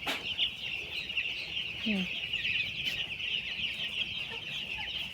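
A large flock of chicks peeping continuously, a dense high chorus of overlapping cheeps.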